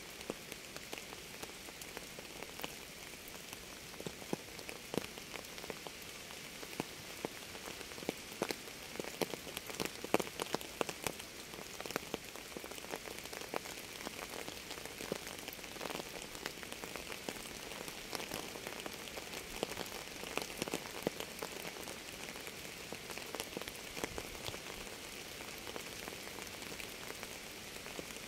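Steady rain, an even hiss with many separate drops landing in sharp ticks.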